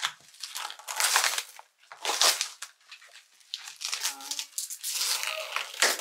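Plastic cling wrap being pulled and torn off takeout food bowls, crinkling in short rustling bursts, then more steadily from about halfway through.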